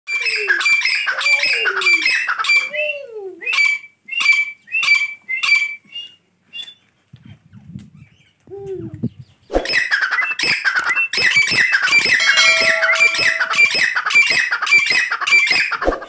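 Grey francolin calling: fast runs of loud repeated notes, about four a second, breaking off for a few seconds near the middle and then resuming denser to the end.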